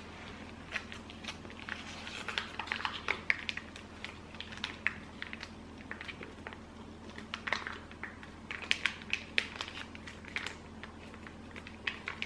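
A spoon scraping and tapping wet cat food out of a pouch into a glass cat bowl, with soft crinkles from the pouch: a run of small, irregular scrapes and clicks, busiest about two to four seconds in and again around eight to ten seconds.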